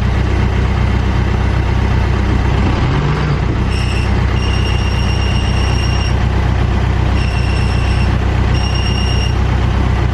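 Backhoe loader's diesel engine running steadily under load, with a thin high whine that comes and goes several times.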